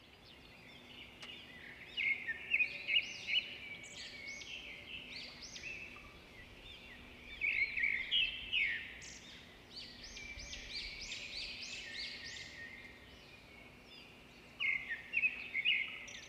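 Birds chirping: many short, quick, overlapping calls that come in spells, with a faint steady hum underneath.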